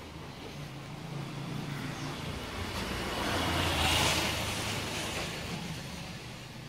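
A motor vehicle passing nearby: a low engine hum and road rush swell to a peak about four seconds in, then fade, over the faint hiss of a gas-welding torch flame.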